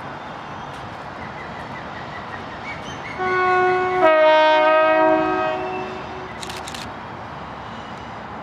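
Class 60 diesel locomotive's five-tone horn sounding for about three seconds. A second, lower chord joins about a second after the first, over steady background noise.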